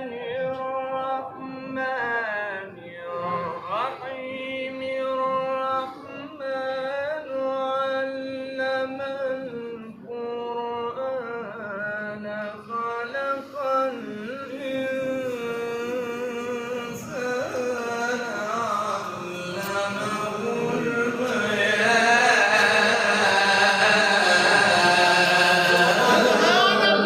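A man chanting Quranic verses in melodic tajweed style, one voice drawing out long, ornamented held notes. In the last several seconds it gets louder as the listeners' voices rise over the chant.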